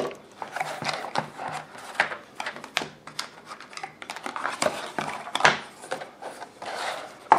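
Cardboard packaging being opened by hand: card and paper rustling and scraping in irregular strokes, with scattered light taps and clicks.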